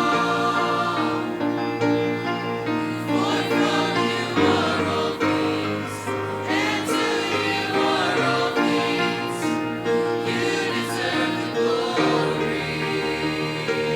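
Choir singing a gospel worship song in harmony, holding sustained chords that change a few times.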